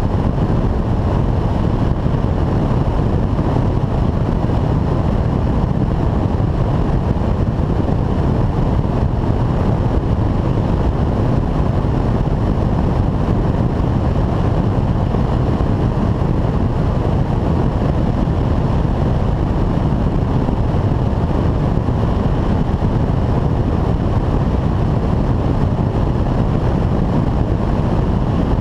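Steady in-flight noise of a Piper Super Cub light aircraft, heard from a camera on its wing: airflow rushing over the microphone with the engine's drone under it, unchanging throughout.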